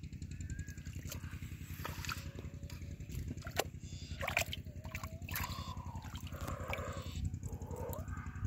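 Hands sloshing and splashing in a shallow muddy puddle while groping for and grabbing a fish, with a few sharp splashes in the first half. A steady low rumble runs underneath.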